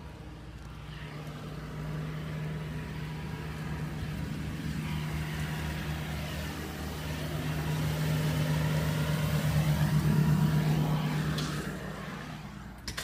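A motor vehicle's engine humming steadily as it drives past on the road, growing louder up to about ten seconds in and then fading away.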